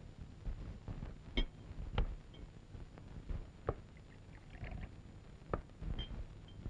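Low background rumble with a handful of soft, scattered clicks and knocks a second or two apart.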